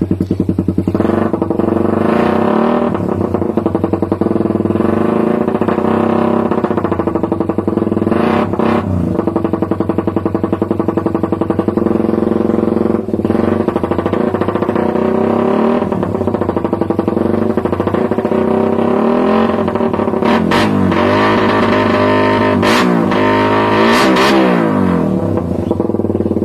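Suzuki Raider 150's single-cylinder four-stroke engine running through an aftermarket conical, GP-style muffler, a bassy note, idling and revved up and down several times, with a quick run of revs near the end.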